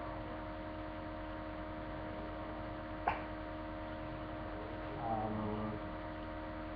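Steady electrical hum with several fixed tones, as picked up on a webcam recording. A single sharp click comes about three seconds in, and a brief faint voice-like sound about five seconds in.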